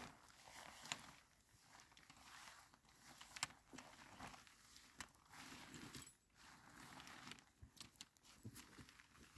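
Faint rustling and crinkling of a pop-up ice fishing tent's fabric being handled, with scattered small clicks and knocks from its frame, the sharpest about three and a half seconds in.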